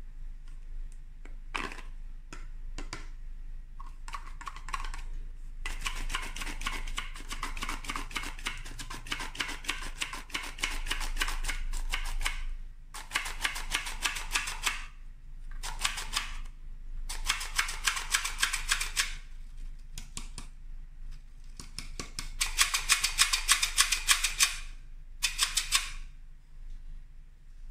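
Handheld plastic flour sifter worked over a stainless steel bowl. Its mechanism makes rapid clicking in several bursts, the longest about six seconds, with a few single clicks before the first.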